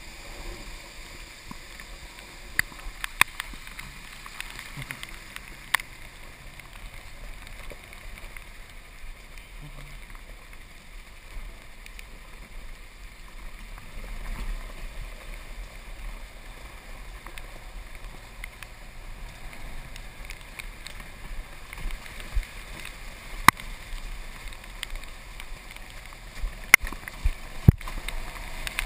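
Golf cart driving along a wet dirt road: steady running noise of the cart and its tyres on the wet ground, with a few sharp clicks and knocks, several of them near the end.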